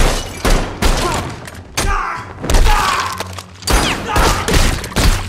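Film fight sound effects: about a dozen sharp handgun shots and hard blows in quick, uneven succession, echoing off stone walls.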